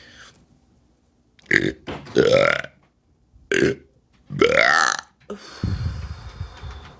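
A woman belching loudly twice, about two seconds apart; each long, pitched belch rises in pitch and is led by a short burst.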